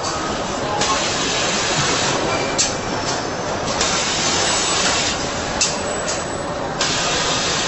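Steady loud hissing noise that swells brighter three times, each surge about a second long, with a couple of short sharp clicks.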